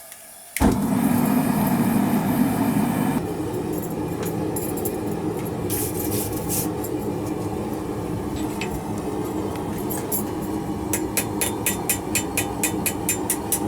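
A forge starts up suddenly about half a second in and runs with a loud, steady rumble that is heaviest for its first few seconds. A quick run of sharp clicks comes near the end.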